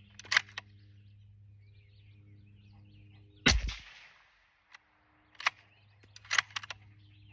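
A single suppressed rifle shot through a Silent AF FNG 3D-printed suppressor about three and a half seconds in: a sharp report with a low thump and a short fading tail. Sharp metallic clicks come near the start and again a couple of seconds after the shot.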